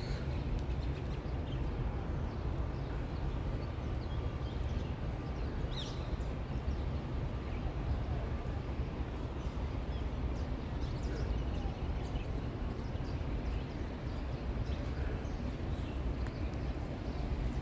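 Outdoor background noise: a steady low rumble with a few faint short chirps over it.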